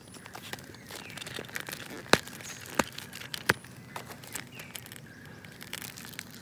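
Plastic toy trucks and their clear plastic packet being handled, with a few sharp plastic clicks, three loud ones about two, three and three and a half seconds in. Birds chirp faintly in the background.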